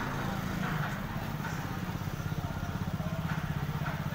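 An engine running steadily with a low, fast, even throb, a little louder in the first second as a motorcycle passes close by.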